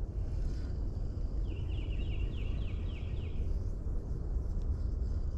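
Steady low outdoor rumble beside a creek. About a second and a half in, a run of about eight short, high, falling chirps repeats quickly for two seconds and stops.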